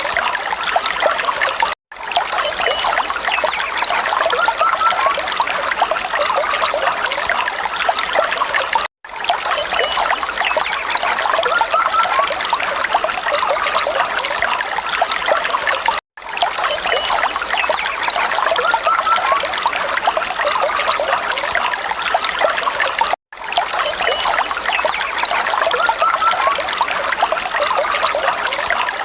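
Water falling and trickling steadily, dense with small splashes, with a brief drop to silence about every seven seconds.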